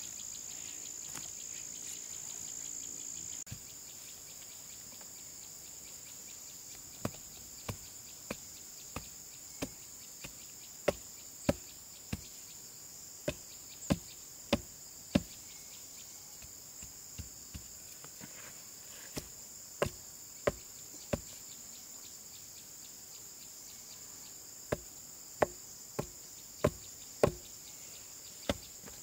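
Insects chirring steadily at a high pitch, a little louder for the first three seconds or so. Over them come runs of sharp struck knocks, about one and a half a second, four to seven blows at a time with pauses between.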